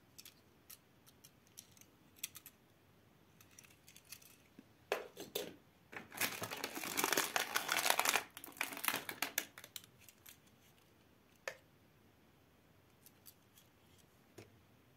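Clear plastic blister packaging crinkling and crackling loudly for a few seconds as a small die-cast toy car is worked out of it, between light clicks and taps of the toy car being handled.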